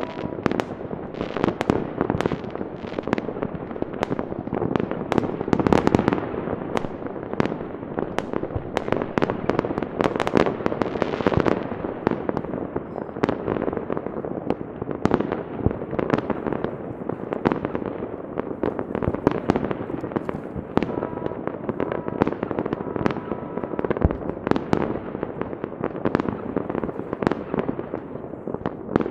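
Many fireworks going off at once across a city: a dense, unbroken rattle of bangs, pops and crackles from rockets and firecrackers that overlap with no pause.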